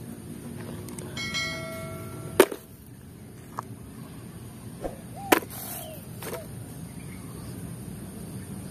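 Bell-like notification ding of a subscribe-button overlay sound effect, several ringing tones held for about a second, ending in a sharp mouse click; a few quieter clicks follow.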